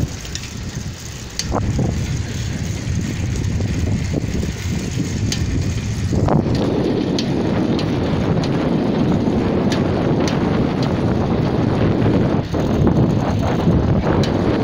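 Wind buffeting the phone's microphone while riding along a road, with tyre rumble underneath and scattered light clicks. The rush grows louder and fuller about six seconds in.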